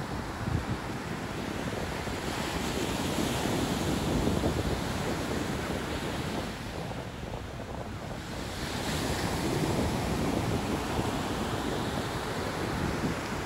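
Surf breaking and washing up a sand beach, swelling and easing every few seconds, with wind rumbling on the microphone.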